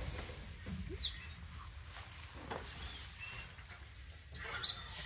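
A newborn puppy squeaking: a faint high squeak about a second in, then two loud, short, high-pitched squeaks near the end.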